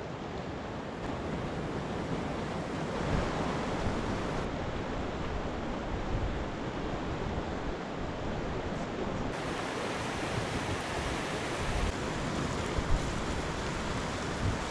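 Boiling geyser water giving off a steady rushing noise, with a few small brief knocks.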